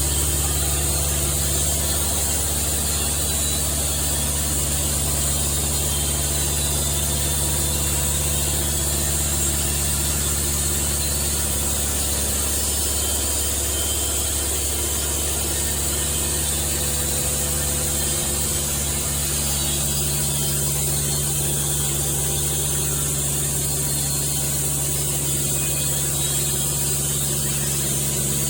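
An engine running steadily at constant speed, with a steady high hiss over it.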